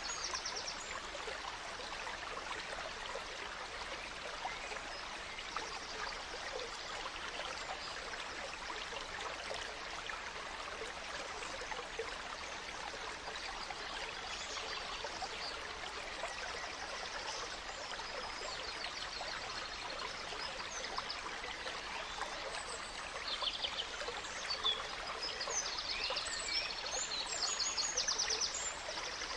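Gentle stream running and trickling steadily, with forest birds singing short high phrases over it, more of them in the last few seconds.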